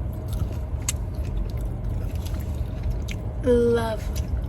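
Steady low rumble of an idling car heard from inside, with faint clicks of chewing and food handling. A short voiced sound, like a brief hum or word, comes about three and a half seconds in.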